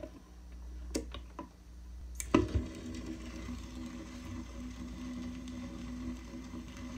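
Record player being started: a few light clicks from handling the tonearm, then the stylus drops onto the vinyl with a sharp thump a little over two seconds in, followed by a steady hum and faint crackle of the needle running in the lead-in groove.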